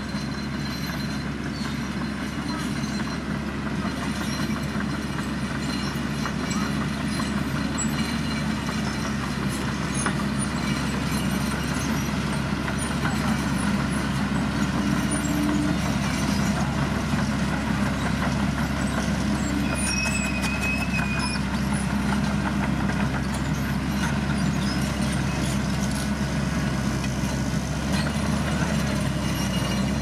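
Engines of a small Mitsubishi BD2J bulldozer and a single-drum road roller running together at a steady working pace as the dozer pushes dirt, growing slightly louder as the roller draws closer.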